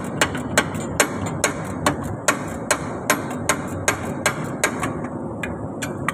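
Sharp, evenly spaced taps, about two or three a second, as a stuck hydraulic return filter on a Toyota 8FB15 forklift is worked loose. The taps thin out near the end, over a steady background hum.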